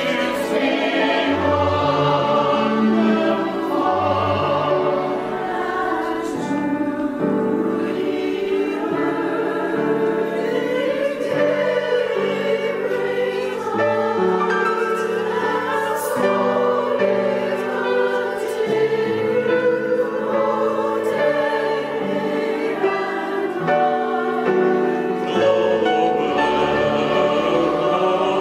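Mixed-voice church choir of men and women singing together, holding long sustained notes that move from chord to chord.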